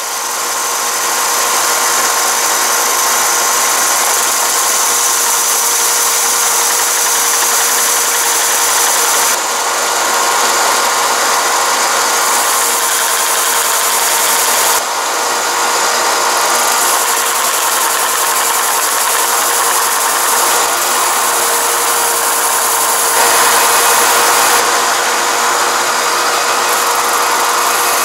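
Tabletop belt sander running steadily while the leading edge of a 5-ply plywood rocket fin is pressed against the moving belt to sand in a bevel. The sound changes abruptly a few times.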